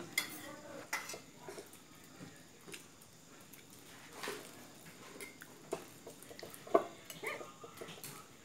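Sparse clinks and taps of metal spoons against bowls and a metal cup, with one sharp, louder click near the end.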